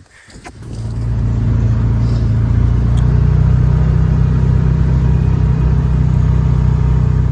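A motor vehicle's engine running with a steady low hum, coming up about a second in and then holding.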